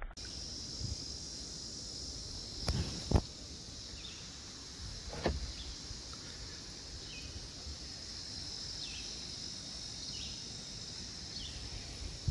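Steady high-pitched insect drone over calm water, with short falling chirps repeating about once a second. A few knocks sound around three and five seconds in.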